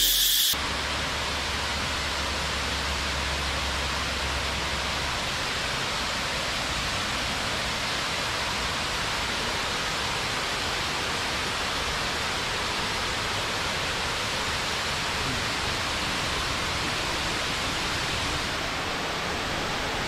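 Steady rush of water from a multi-tiered waterfall cascading into a pool, with a low rumble underneath that fades out about five seconds in.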